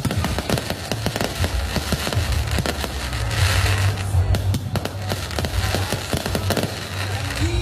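Aerial fireworks display: a dense, irregular run of shell bangs and crackling bursts, with a spell of hissing crackle about three and a half seconds in.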